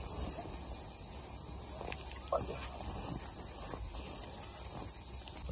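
Cicadas singing in a steady, high-pitched chorus.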